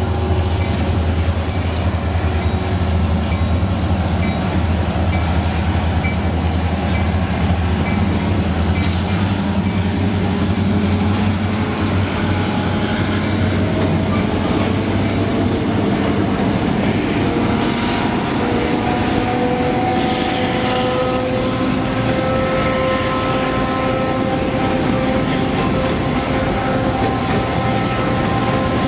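CSX diesel freight locomotives passing close with a heavy low engine drone that eases after about ten seconds, followed by boxcars and covered hopper cars rolling by with steady wheel-on-rail noise. Thin steady tones that slowly rise in pitch come in over the second half.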